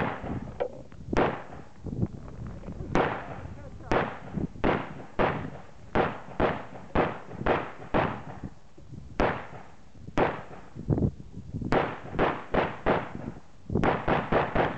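AK-47 rifle firing a long string of single shots, about two dozen in all, mostly half a second to a second apart, with a quicker run of five or six shots near the end. Each shot is sharp and followed by a brief echo.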